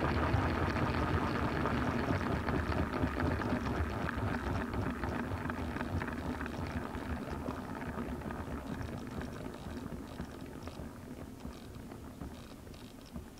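Align T-Rex nitro RC helicopter, heard from on board, sitting on the ground as its main rotor winds down. The running noise fades steadily over the whole stretch, with faint ticks near the end.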